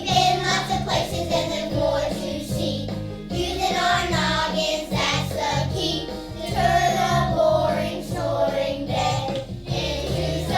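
A group of young children singing together over an instrumental accompaniment with a steady, repeating bass line.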